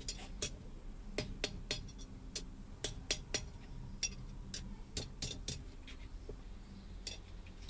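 Hand hammer striking an iron bar on a blacksmith's anvil: an uneven run of sharp, ringing metallic taps, two or three a second with short pauses between groups, as the bar is tapped down into shape.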